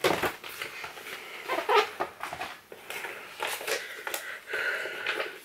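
Glossy paper brochure rustling as its pages are handled and closed, with a sharp paper snap at the start, followed by irregular rustles and light scrapes of items being handled.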